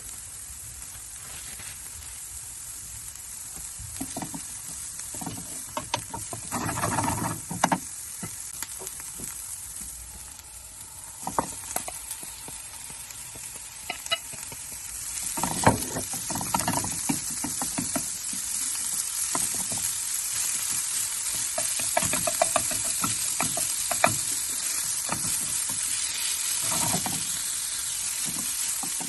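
Food sizzling in a frying pan, getting louder partway through, while a spoon stirs and scrapes it now and then.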